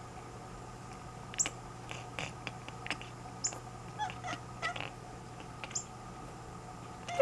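Sleeping cat making a scattered series of short, soft vocal sounds, ending in a sharper, louder sound right at the end.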